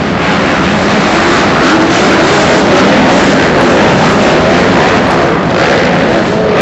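A full pack of motocross dirt bikes racing together, many engines revving at once in a loud, dense din, their pitches wavering up and down over one another as the riders work the throttles.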